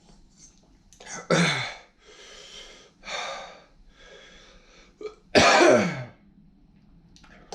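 A man coughing and breathing hard from the burn of extremely spicy Carolina Reaper ramen: two loud coughs, one just over a second in and a louder one about two-thirds through, with hissing exhales between them.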